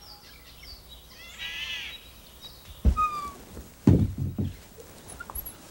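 A crow caws once, a harsh call, with a few small bird chirps around it. Dull thumps follow about three and four seconds in, the loudest sounds here.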